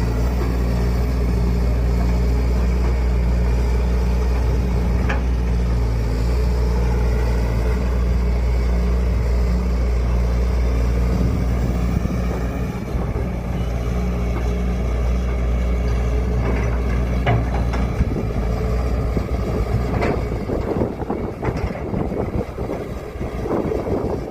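Heavy diesel engine running at a steady speed, its hum dropping away about halfway through. After that comes rougher rumbling noise with a few sharp knocks.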